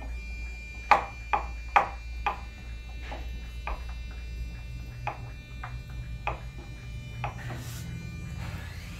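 About ten light, irregularly spaced knocks and clicks from hands handling parts inside a wooden subwoofer cabinet, the sharpest in the first two seconds, over a low steady hum.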